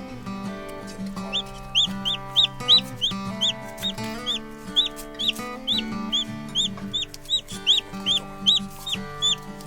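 Newly hatched chicks peeping: a long run of short, high cheeps, about three a second, over background music.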